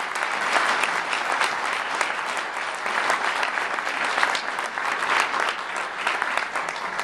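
Audience applauding, a dense, steady clapping of many hands.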